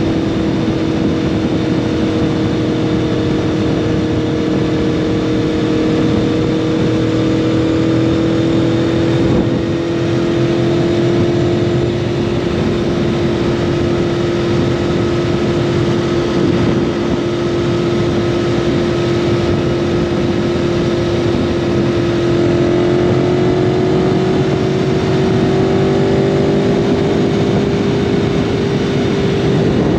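Aprilia Tuono V4 motorcycle engine through an SC Project slip-on exhaust, running at a steady cruise with its pitch drifting slightly and rising a little about two-thirds of the way through, over steady wind and road noise.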